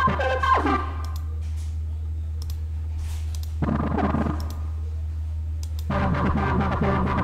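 Short bursts of synth chords from the Nexus software synth: one fading out just after the start, another about halfway through, and a third near the end. Sharp clicks fall in the gaps, over a steady low hum.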